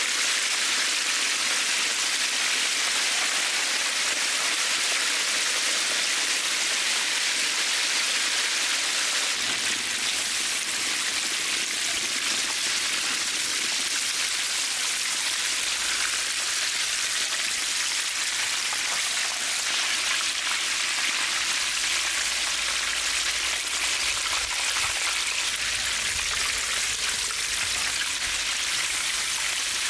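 Chicken pieces deep-frying in hot oil in a cast-iron cauldron, with a steady, even sizzle and crackle of bubbling oil.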